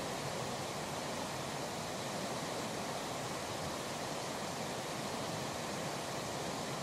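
Steady rushing noise of river water, with wind on the microphone.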